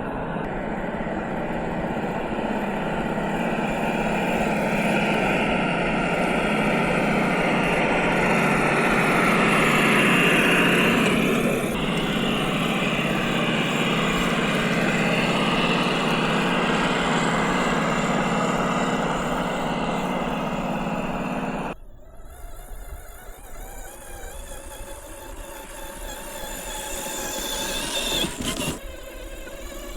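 Simulated engine note from a sound module in a 1/10-scale FMS FJ40 RC crawler, over the high whine of its electric drive motor; it swells around ten seconds in, then stops abruptly about two-thirds of the way through, leaving a quieter, thinner sound.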